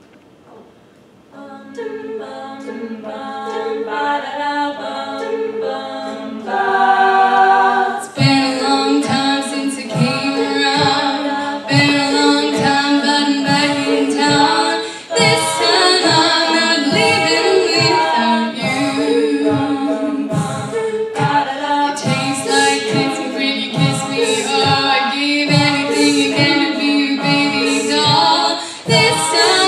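Women's a cappella group singing, voices only. The group enters with held chords about a second and a half in and grows louder. About eight seconds in a steady vocal-percussion beat of low thumps and hissing strokes joins the singing.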